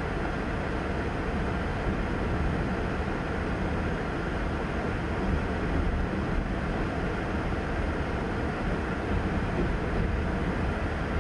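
Freight train of covered hopper cars rolling past: a steady, even rumble of steel wheels on rail, heard from inside a car.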